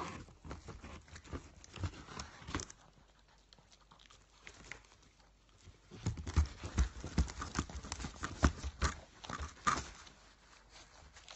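A dog nosing at a cardboard pizza box through a hole in its lid, making a run of irregular taps, scrapes and knocks against the cardboard. It goes quiet for a few seconds in the middle, then gets busiest in the second half.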